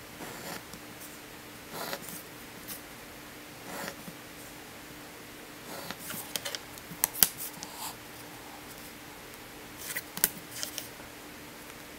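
Pencil drawing lines along a wooden ruler on paper, with the ruler being set down, slid and picked up: short scratchy strokes and scattered sharp clicks, clustering in the middle and again near the end, over a faint steady hum.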